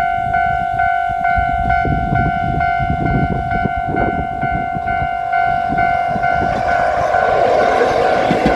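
Japanese railway level-crossing warning bell ringing about twice a second. An electric Kotoden train approaches, and its rumble and wheel noise swell over the last two seconds.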